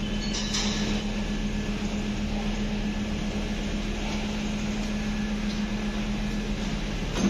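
Steady mechanical hum with a constant low drone.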